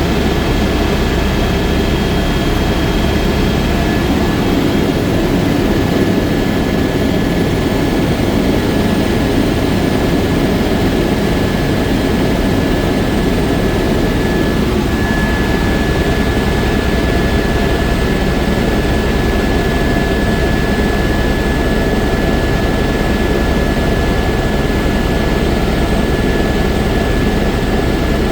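Helicopter turbine engine and rotor running steadily in flight, with a thin steady high whine above the rotor noise.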